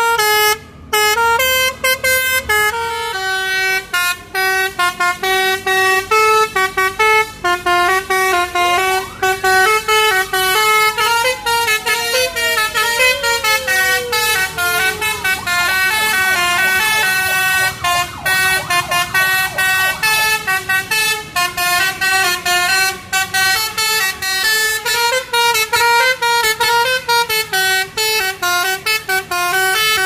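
Telolet basuri multi-tone bus horn playing a quick melody of short, stepped notes, with brief breaks between phrases, on Adiputro Jetbus tour buses.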